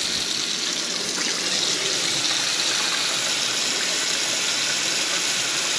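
Kitchen faucet running a steady full stream into the open drain of a stainless steel sink, a continuous rush and splash of water. The water goes straight down the freshly cleared drain line as a flow test after the clog was rodded out.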